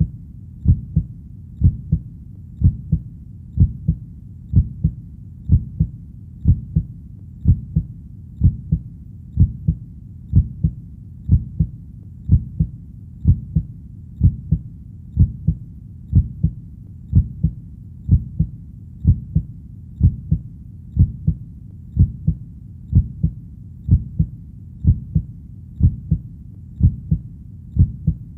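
Heartbeat sound: a steady, slow lub-dub, two low beats close together repeating about once a second, over a faint low hum.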